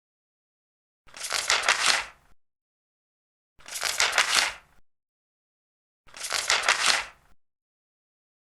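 Large paper pages turned one after another: three rustling page turns of about a second each, roughly two and a half seconds apart.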